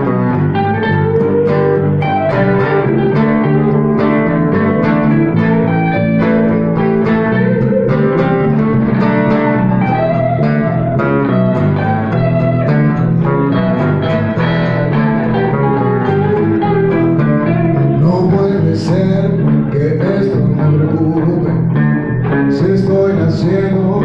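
Live guitar band playing: an electric guitar picking a fast run of notes over acoustic guitar and electric bass.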